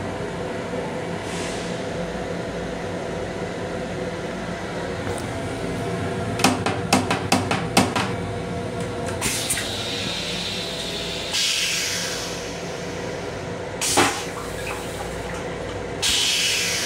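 Steady mechanical hum in an M7 railcar restroom. About six seconds in comes a quick run of hard plastic clicks and knocks as the toilet seat and lid are lifted, followed later by several short hissing spurts and one more knock.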